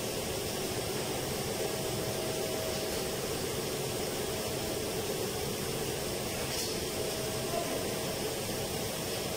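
Steady, unchanging rush and hum of air-conditioning air-handling fans running.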